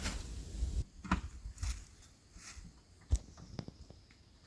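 Wind noise on the microphone that stops abruptly about a second in, then a few scattered clicks and knocks, the loudest just past three seconds.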